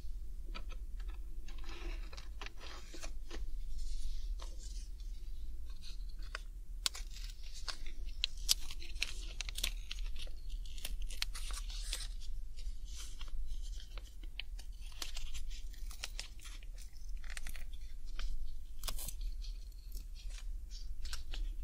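Alcohol pad being scrubbed over the keycaps of an HHKB Professional 2 keyboard: irregular scratchy rubbing, broken by many small clicks and taps of the keycaps as they are wiped.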